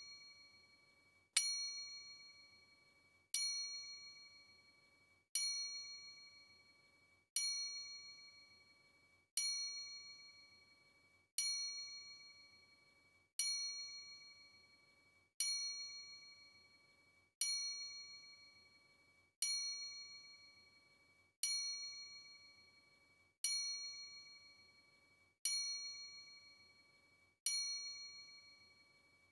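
A bell-like ding struck once about every two seconds in a perfectly even loop. Each strike starts sharply and rings down before the next one.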